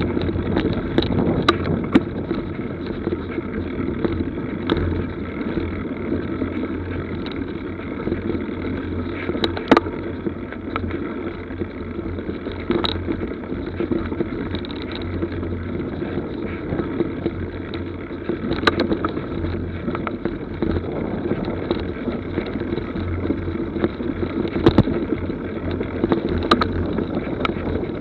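A mountain bike ridden over a rutted, muddy forest track, heard through an action camera's microphone. The tyres make a steady rumble on the dirt, and the bike gives sharp knocks and rattles at irregular moments as it hits bumps.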